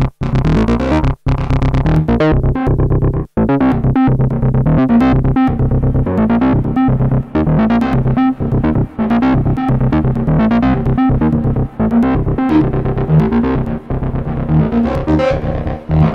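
Dreadbox Typhon analog synthesizer playing a fast sequence of short, repeating notes over a steady low bass note, with brief gaps in the first few seconds.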